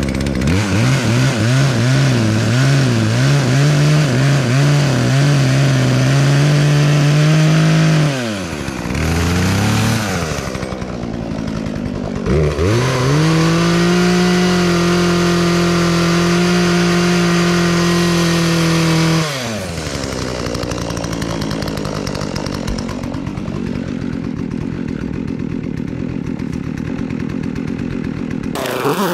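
Poulan Predator two-stroke chainsaw held at high revs with a wavering, surging pitch, falling back to idle about 8 seconds in. It is revved again and held steady for about seven seconds, then drops to a quieter idle, with a quick rev near the end. It is running poorly and surging, which the owner guesses is a dirty carburetor.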